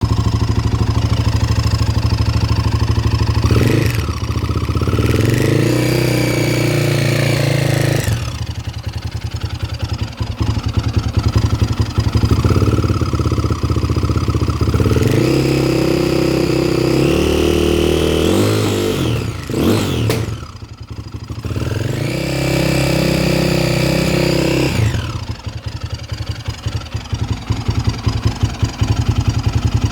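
A 2008 KTM 530 EXC single-cylinder four-stroke dirt-bike engine idles with an even pulse and is revved several times, some revs held for a few seconds and one a quick blip. The owner is unsure whether the engine sounds bad or healthy.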